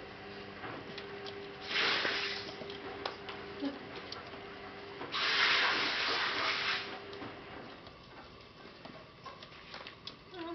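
Kittens play-fighting, scuffling and tumbling against a padded bed and a wire pen, with two bursts of hissing noise: a short one about two seconds in and a longer one about five seconds in.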